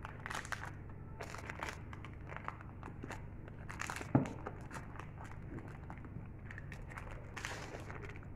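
Baking parchment crinkling and rustling in short bursts as it is pulled away from the sides of a cake in a metal loaf tin, with one sharp knock about four seconds in.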